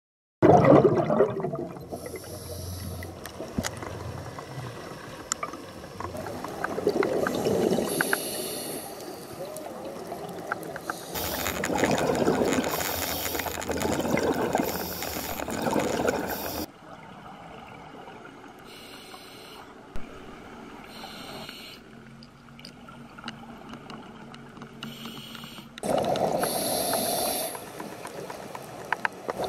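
A scuba diver breathing through a regulator underwater: hissing and rushing bubble noise in slow repeated breaths, with quieter gaps between them.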